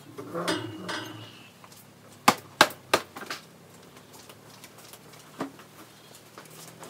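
Three sharp knocks in quick succession, about a third of a second apart, then a single fainter knock a few seconds later.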